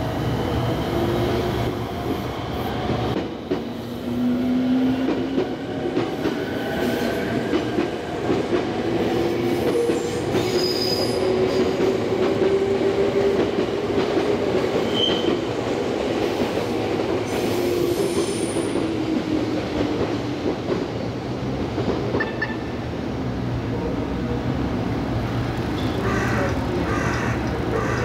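A red Meitetsu electric train running past over the tracks, its steady running noise carrying long wavering tones that slide up and down from the wheels on the rails.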